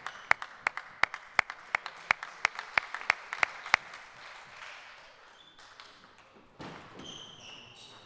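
A table tennis ball bouncing over and over on a hard surface in the hall, about three light clicks a second, which stop about four seconds in. Near the end come brief high squeaks of sports shoes on the wooden floor.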